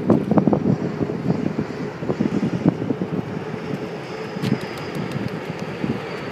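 Wind buffeting the microphone in gusts, with a distant jet airliner's engines faintly heard as it rolls down the runway after landing; a faint high engine whine comes in about halfway through.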